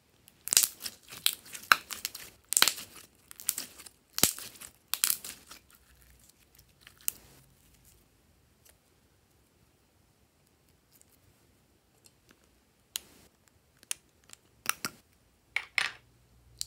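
Clear glitter slime being stretched and pulled by hand, with wet crackling and popping in a run of bursts over the first six seconds. Near the end come a few sharp clicks as lipstick tubes are handled.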